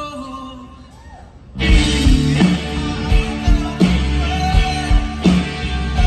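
Live rock band playing through a stage PA: electric guitar, bass guitar and drums. A quieter passage with a few held guitar notes opens, then about a second and a half in the full band comes in loud, with steady drum hits.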